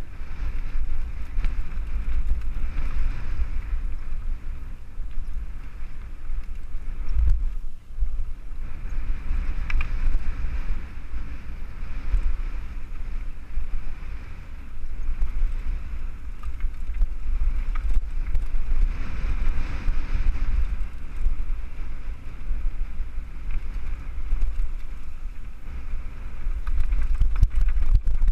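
Wind rumbling on a helmet camera's microphone as a mountain bike rolls fast down a dry, rocky dirt trail, with the hiss and rattle of the bike riding over the ground swelling and easing.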